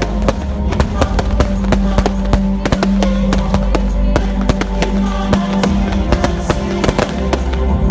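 Fireworks going off in a rapid, dense string of bangs and crackles, over music with steady held notes and a low bass.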